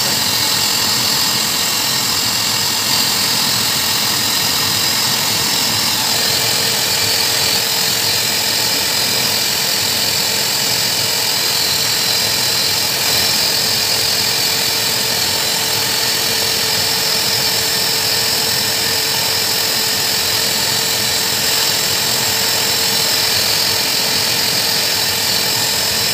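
Hose-type pet blow dryer running steadily: a loud motor whine and air rushing out of the nozzle as it blows through a Saint Bernard's thick coat. A steady tone joins in about six seconds in.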